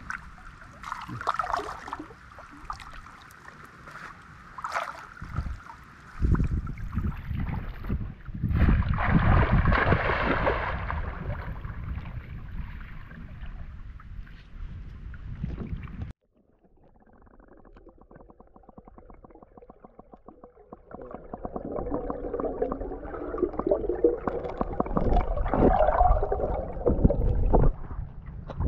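Water splashing and sloshing as hands and a woven bamboo basket sieve work through shallow, weedy water, with irregular splashes and clicks. The sound drops away suddenly just past halfway, then builds back up into steady sloshing.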